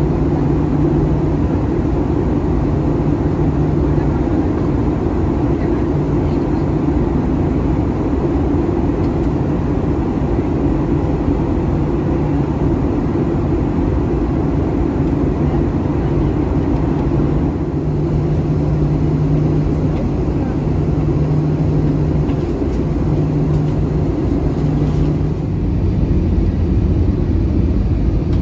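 Airbus A320 cabin noise during descent: a steady drone of engines and airflow. A low hum comes and goes every few seconds, and the drone drops lower in pitch about 25 seconds in.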